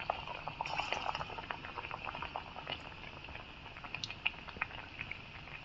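Besan-battered potato slices (aloo pakora) deep-frying in hot oil in a kadhai: a steady sizzle full of small crackles and pops, with one sharper pop about four seconds in.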